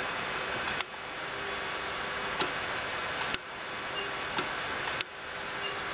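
Denshine ultrasonic dental scaler handpiece being tried out after its repair: three sharp clicks, each followed about half a second later by a brief high-pitched buzz as the working tip is touched, over a steady hiss.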